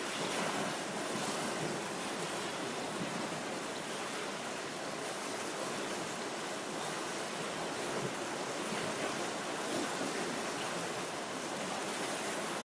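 Floodwater rushing in a steady, even flow around tree trunks, starting and stopping abruptly.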